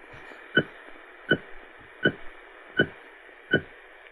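AM broadcast static from a Sangean PR-D19 portable radio's speaker tuned to 1130 kHz, with a steady pulse, a short beep and thump five times at even spacing of about three quarters of a second. It is an odd sound on the frequency, with something going on there.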